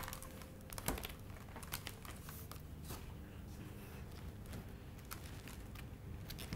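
Faint rustling and scattered light clicks and knocks as a cloth is arranged over a cabbage in a wicker basket, the sharpest click about a second in.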